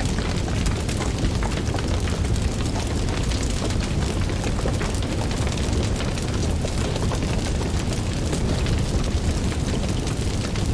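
Wood fire burning in a fireplace: a steady low rumble of flames with many small crackles and pops throughout.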